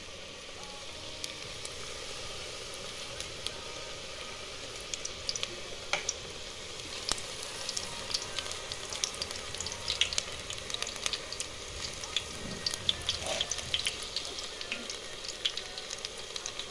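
Gram-flour and onion pakoras deep-frying in hot oil: a steady sizzle full of small crackles and pops, getting busier from about five seconds in.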